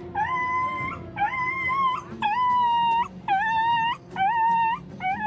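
A dog crying out in pain in a string of about six high yelps, each held for nearly a second, one right after another. The dog has just been slashed in the leg with a machete.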